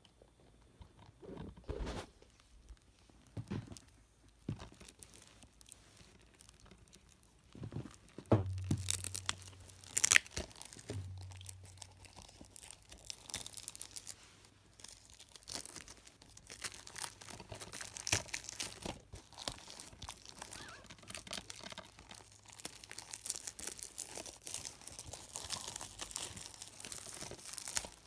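Plastic shrink-wrap being torn and crinkled off a DVD case, with a few handling knocks. The loudest tearing comes about eight to eleven seconds in, and dense crinkling follows.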